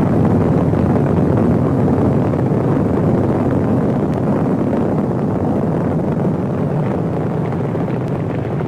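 Rocket launch: the engines' steady, deep rumbling noise as the rocket climbs, slowly getting quieter.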